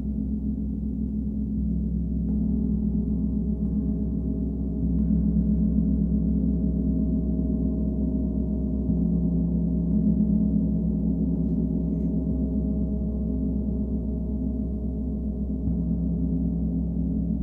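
Large hammered gongs played with felt-headed mallets, soft repeated strokes building a continuous low, shimmering drone. A fresh stroke swells the sound every few seconds.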